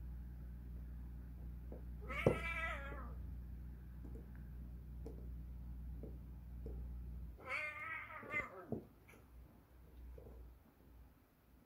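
Sphynx cat yowling twice during a fight, each a wavering drawn-out call, the second longer and coming about five seconds after the first.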